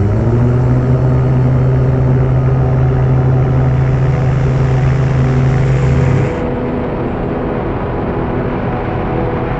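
Electric EEL hybrid-electric twin-propeller aircraft running on the runway, heard inside the cockpit as a loud, steady drone with a strong low hum. About six seconds in it turns into a rougher, noisier rush of engine and propeller sound heard from outside the aircraft, and the hum drops away.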